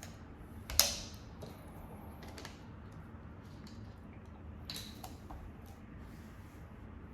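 Small handling clicks: one sharp click about a second in, a softer one near five seconds, and faint light clicks between.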